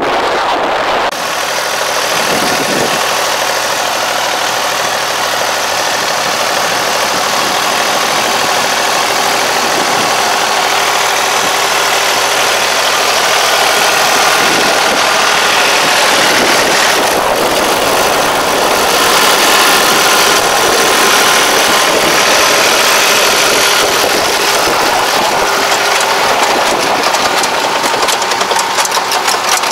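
Yanmar half-crawler tractor's diesel engine running steadily as the tractor pulls a planter through tilled soil.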